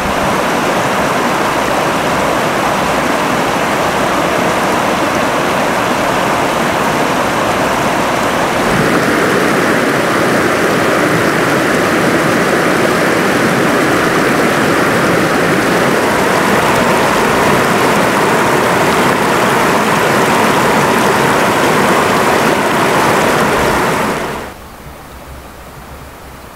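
Rushing water, a steady loud rush that gets a little louder about nine seconds in, then drops off sharply near the end to a quieter hiss.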